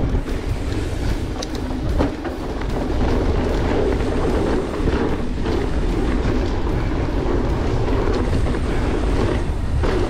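Mountain bike riding over a dirt trail: steady rolling tyre noise and wind rush on a helmet-mounted camera, with rattling from the bike and a few sharp knocks.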